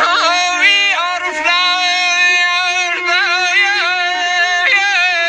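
Male voice singing a Qashqai song in high, wavering phrases full of quick pitch ornaments, over a steady held note from the accompanying instrument.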